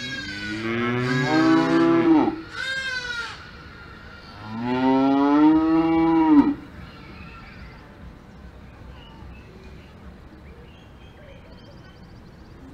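Cows mooing: a long moo, a short one straight after it, then another long moo about four and a half seconds in.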